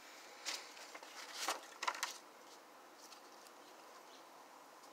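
Paper pages of a disc-bound journal being turned, a few short crisp rustles in the first two seconds or so.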